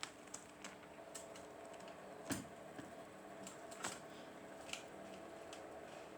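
Faint, irregular light clicks and taps, about a dozen, the two loudest a little over two seconds in and near four seconds in, over a low steady hum.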